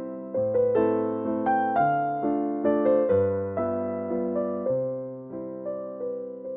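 Background piano music, likely an electric piano: a slow melody over chords, each note struck and left to fade.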